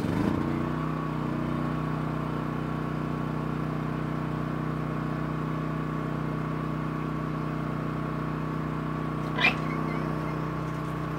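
Off-grid power equipment starting up: a steady, low, pitched machine hum sets in abruptly and holds. A sharp click comes about nine and a half seconds in.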